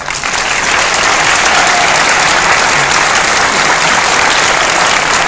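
Audience applauding, dense and loud, right after the music ends.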